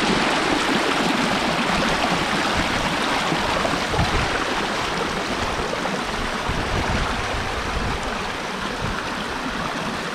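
A fast-running hillside beck in winter spate, water rushing over stones in a steady, loud rush.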